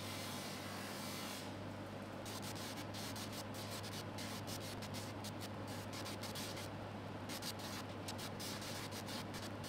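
Bench polishing machine with its cloth wheel spinning and its motor humming steadily. For the first second or so a bar of polishing compound is pressed against the wheel with a steady hiss. Then a metal watch-bracelet link is held to the wheel for medium polishing, rasping in quick, irregular scratchy strokes.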